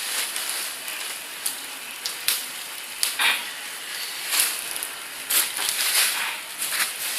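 Plastic and paper sack material crackling and rustling, with irregular sharp crackles about once a second over a steady hiss.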